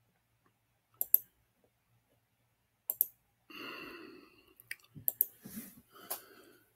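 A handful of sharp, isolated clicks, spaced a second or two apart at first and coming closer together near the end. A short, soft vocal murmur or breath comes a little past halfway.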